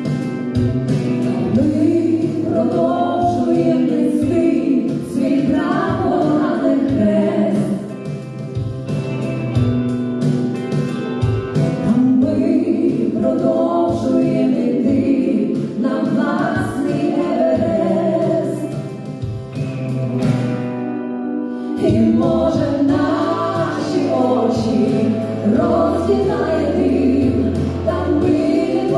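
A song sung by a group of voices, choir-like, with musical accompaniment.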